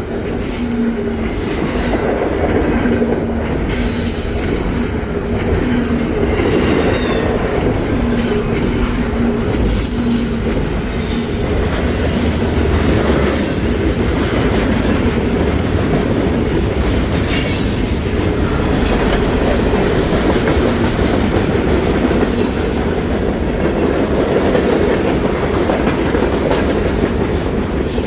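Freight train rolling past: a steady, loud rumble of railcars with wheel-on-rail clicking and brief high wheel squeals.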